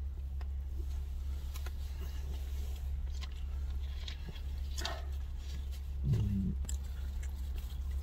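Steady low rumble of a car's running engine heard inside the cabin, with scattered small clicks of chewing and food wrappers being handled. A short low murmur from one of the men about six seconds in.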